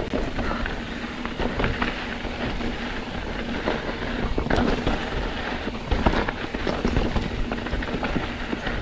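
Mountain bike riding over a rocky trail: tyres crunching on rock and grit, with the frame, chain and components rattling and knocking irregularly.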